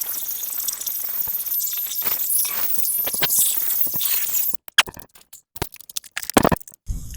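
Wire-feed welder laying a bead: a steady crackling hiss for about four and a half seconds that stops abruptly, followed by a few light clicks and knocks of metal.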